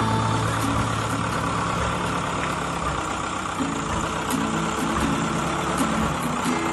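Case backhoe loader's diesel engine running steadily under load as the front loader bucket, full of soil, is lifted up to the dump truck.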